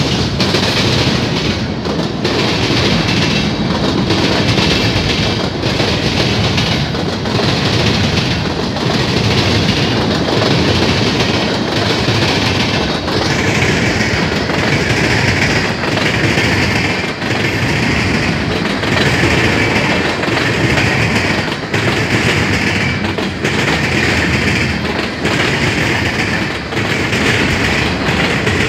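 Freight train rolling past close by: a steady rumble of the cars with a regular clickety-clack of the wheels about every second and a half. From about halfway, a high screeching note from the wheels comes and goes over the rumble.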